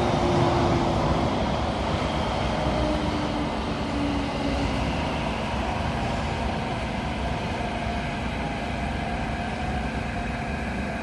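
Inside the cabin of a Kawasaki–CRRC Qingdao Sifang CT251 MRT train braking into a station. The running noise slowly eases as the train slows, and faint whining tones fall in pitch.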